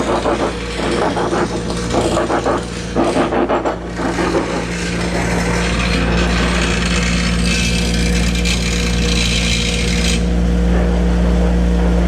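Electric power tool running against steel Unistrut, with a steady motor hum and rasping, scraping strokes of metal being cut or ground during the first few seconds, then a steadier grinding noise.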